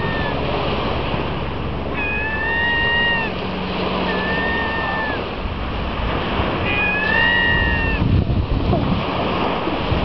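Gulls giving drawn-out mewing calls, three of them about a second each, each falling slightly at the end, over the steady wash of small waves on the shore.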